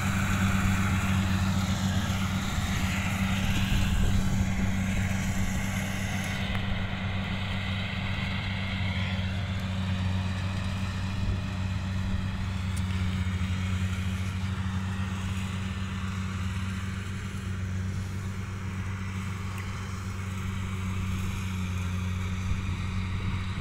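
Kubota DC70 rice combine harvester's diesel engine running at steady working speed while it cuts and threshes rice. It makes an even, low drone that grows a little fainter as the machine moves off across the field.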